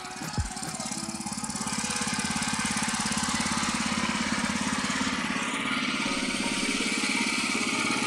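Single-cylinder four-stroke petrol engine of a Magnus BKM-8/1000 NV cultivator running. It picks up speed and grows louder over the first two seconds, then runs steadily.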